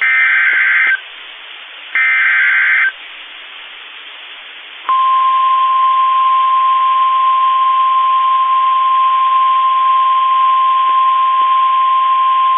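NOAA Weather Radio alert sequence: two one-second bursts of screechy SAME digital header data, then about five seconds in the steady 1050 Hz warning alarm tone, over radio hiss. The tones signal the start of a severe thunderstorm warning broadcast.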